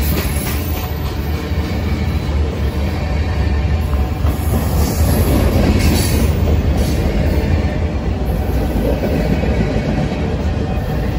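Freight cars of a passing freight train rolling by at close range: a steady, loud rumble and clatter of steel wheels on the rails. A few brief sharper sounds stand out about halfway through.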